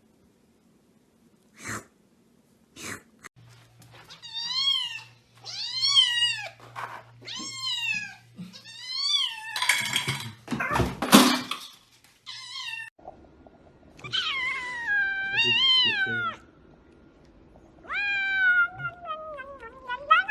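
Domestic cat meowing over and over: a run of four short rising-and-falling meows, then longer drawn-out meows. A loud rough noise sits between them, about halfway through, and a few sharp clicks come at the start.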